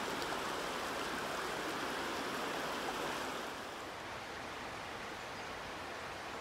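Shallow river running over stones: a steady rush of water that drops to a quieter, duller hiss a little past halfway.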